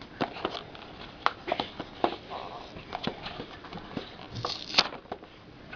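Irregular clicks, crackles and crinkles of a plastic-and-cardboard toy blister package being handled and worked open.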